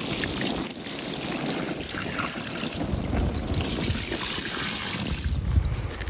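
Water being poured from a bucket over a large common carp lying in a water-filled carp cradle, splashing and trickling steadily.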